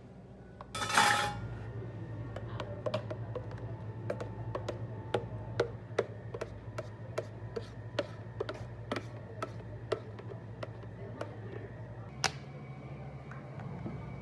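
Cafe work sounds: about a second in, a short hiss starts a low steady machine hum. Over the hum comes a run of light clicks and taps, roughly two a second, and a sharp knock near the end.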